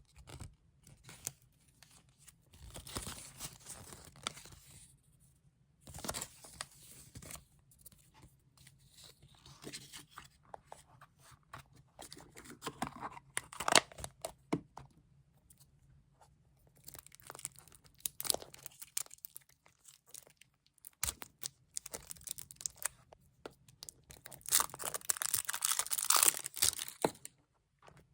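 Wrapping being handled and torn open by hand, in several separate bouts of rustling and crinkling with sharp crackles; the longest and loudest bout comes near the end.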